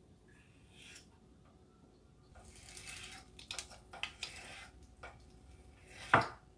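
Kitchen knife slicing through a bamboo shoot on a wooden cutting board, starting about two seconds in. There is a scraping cut and several light knocks of the blade on the board, then one sharp knock near the end.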